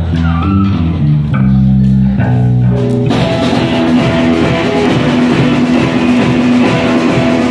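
Live rock band of electric guitars, bass guitar and drum kit playing. Held low guitar and bass notes open it, and the full band with drums and cymbals comes in about three seconds in.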